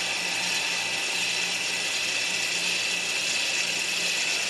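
Electronic parking brake actuator motor on a 2012 Hyundai Grandeur's brake caliper, running with a steady high whine. The scan tool's pad-change-mode-after-change routine is driving the piston back out against the new pads.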